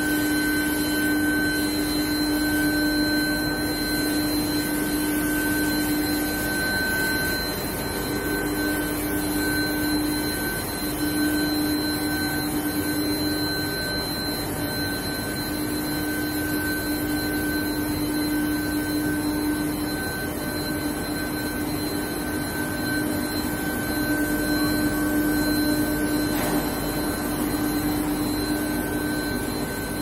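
A steel pipe induction hardening line running: a steady machine drone with several steady whining tones held throughout.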